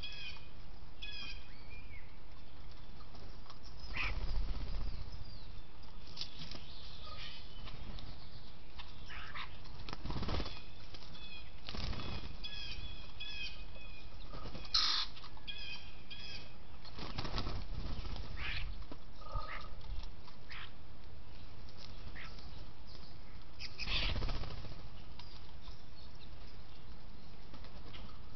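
Outdoor bird-cam sound: a steady hiss with birds chirping in short runs of high notes in the background. About six brief whooshing rustles are spread through it.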